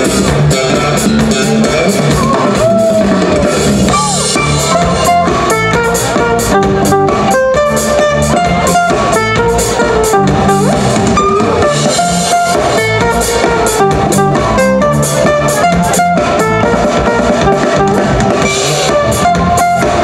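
A live folk-fusion band playing music with a steady beat.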